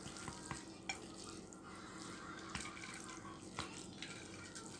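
Chopsticks stirring and lifting seasoned instant noodles in a glass bowl: faint wet squelching with a few light clicks.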